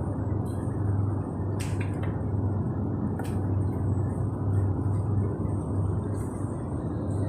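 100 W mini jewellery laser spot welder: a steady low hum, with a few sharp, irregularly spaced clicks of the laser's spot-weld pulses.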